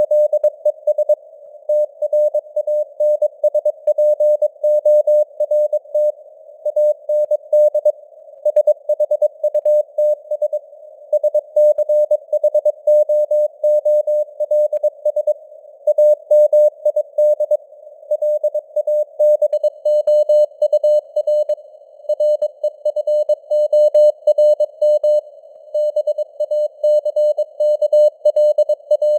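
Morse code (CW) sent at 22 words per minute: a single mid-pitched beep keyed on and off in dots and dashes, spelling out news headlines. Underneath it runs a narrow band of simulated radio static, with the signal strength fading up and down (simulated QSB).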